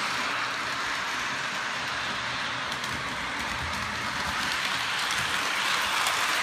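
Model train running steadily around its track: a continuous rolling hiss of wheels on rails and the locomotive's motor, with no pauses.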